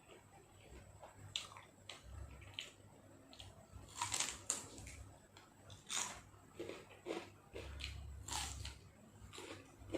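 A person eating close to the microphone, chewing and biting a spicy grilled-beef salad with fresh vegetables, in irregular bursts. The bursts are loudest about four seconds in and again around six and eight seconds.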